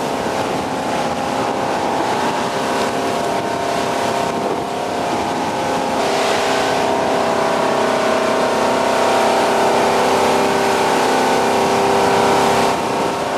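Engine of a 29-foot Maxum cruiser running steadily under way: a continuous drone with wind and water rushing past. It grows a little louder and noisier about halfway through.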